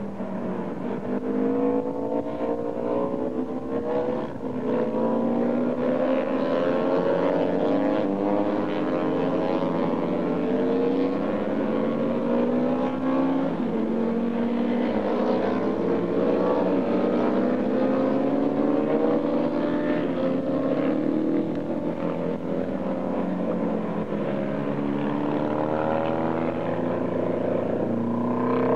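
Vintage racing motorcycles on a road course at full throttle, several engines at once, each pitch climbing and falling back again and again as the riders run up through the gears.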